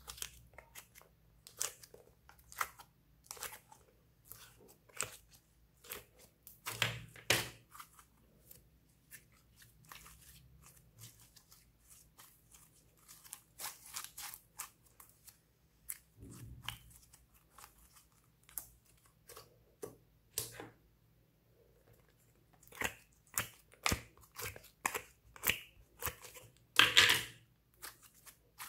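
Thick, sticky slime being kneaded, squeezed and stretched by hand, making a string of irregular short clicks and crackles. The clicks bunch up louder about seven seconds in and again near the end.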